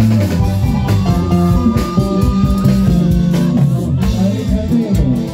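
Live band music played over a stage PA, with guitar and a steady drum beat.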